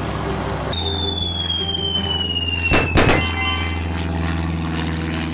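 Cartoon sound effects: a whistle falling slowly in pitch for about two seconds, ending in two quick pops, then faint chime-like tones, over a steady low hum.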